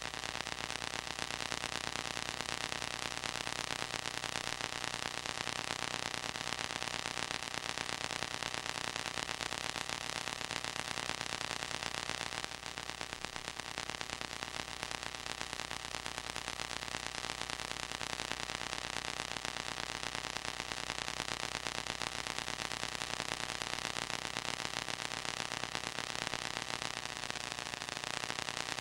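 Steady hiss with a faint constant hum underneath and no other sound: the noise floor of a silent home-movie film transfer.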